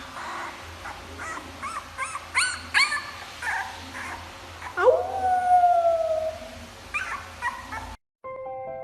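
A dog whining and yipping in a run of short, rising-and-falling cries, then giving one long howl about five seconds in that sweeps up and slowly falls.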